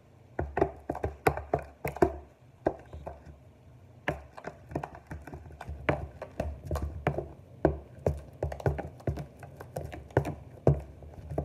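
Utensil stirring a foamy slime mixture in a plastic tub: quick, irregular knocks and taps against the plastic, with dull thumps.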